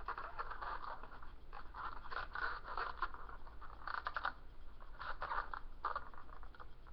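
Scissors cutting through the lid of an egg carton: a run of short, irregular snips.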